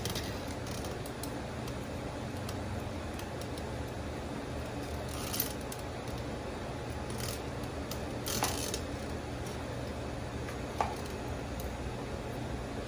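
Grooming shears snipping fur around a dog's hind paw, a few scattered short snips over a steady low hum.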